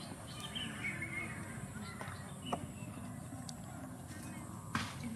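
Outdoor background of low voices and faint high chirps like small birds, with two sharp clicks, one about halfway through and a louder one near the end.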